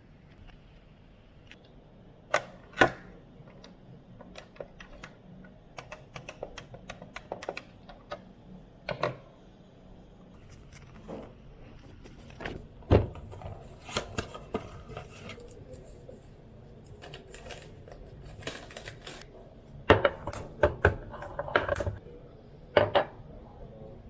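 Irregular light clicks and taps with a few louder knocks, as small objects are handled and set down.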